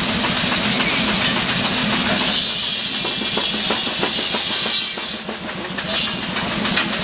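Sawmill machinery running with a fast, even knocking over a steady low hum. About two seconds in, a loud high hiss joins, then cuts off suddenly and flares again briefly a second later.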